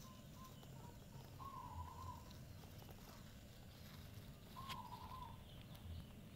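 Faint outdoor ambience with a distant bird calling: a few short notes, then two wavering, warbling calls each under a second long, about three seconds apart.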